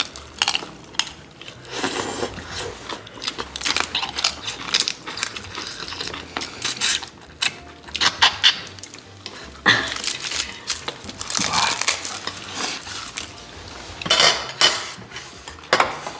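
Cutlery and dishes clinking and tapping irregularly during eating, many short sharp clicks with brief scraping and rustling in between.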